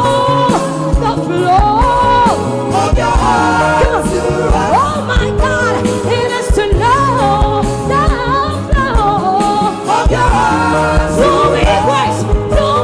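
Gospel song with a steady beat and bass, sung by a lead voice with a choir singing wordless runs and ad-libs.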